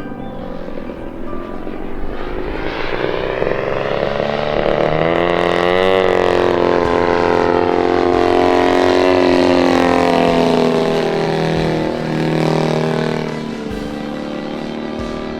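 Radio-controlled Extreme Flight Yak 54's 120cc DA twin-cylinder two-stroke petrol engine and propeller in flight. It grows louder toward the middle, with the pitch sliding down after about six seconds and swinging back up around twelve seconds as the plane manoeuvres.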